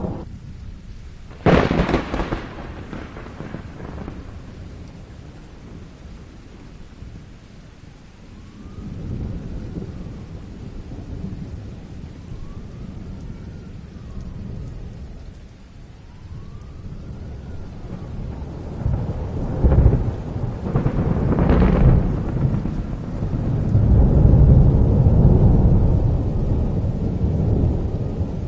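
Thunder over steady heavy rain: a sharp crack about a second and a half in, a low rumble partway through, then two loud claps around two-thirds of the way in followed by a long rolling rumble near the end.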